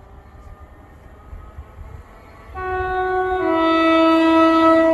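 Greater Anglia train's two-tone horn sounding about two and a half seconds in: a higher note first, then a slightly lower note that is held loud and steady on past the end.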